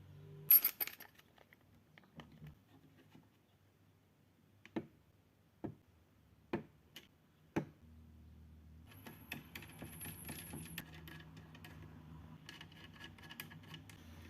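Small hard parts clinking and clicking during PC assembly: a sharp bright clink near the start, four separate clicks about a second apart in the middle, then quicker light clicking and rattling over a low hum.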